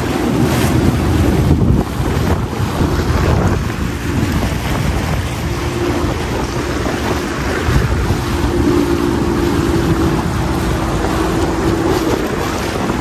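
Sea-Doo jet ski running steadily at cruising speed, heard from the rider's seat: an even engine hum, a little stronger late on, under heavy wind noise on the microphone and the rush of water off the hull.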